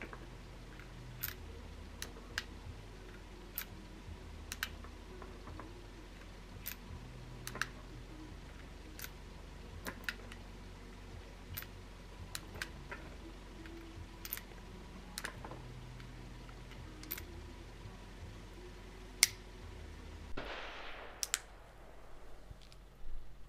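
Sharp metallic clicks, roughly one a second, as 7.62 Nagant cartridges are taken from a plastic ammo box and loaded one by one into a Nagant revolver. A short rush of noise comes near the end, followed by a couple more clicks.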